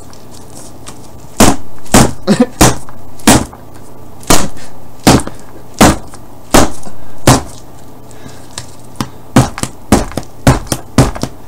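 A dildo being beaten against a heavy-duty cardboard box to break it open: a series of sharp whacks, about one every three-quarters of a second, then a run of lighter, quicker hits about two-thirds of the way in.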